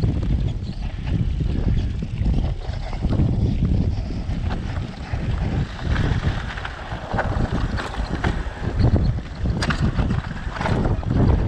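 Wind buffeting the camera microphone, with the rumble of mountain bike tyres rolling over a rock slab. In the second half several sharp clicks and knocks come from the bike as it rides over the rock.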